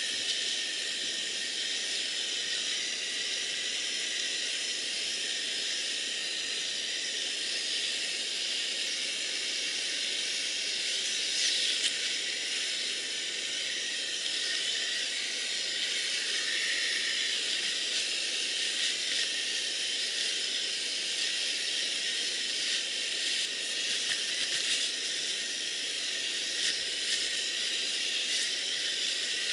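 Backpacking stove burner hissing steadily while it melts snow for water, with a few brief rustles of nylon sleeping-bag fabric.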